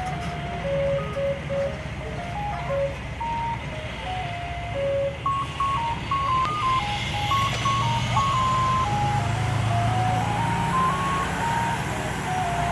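Ice cream truck's jingle: a simple chiming melody played one note at a time, over a low steady hum.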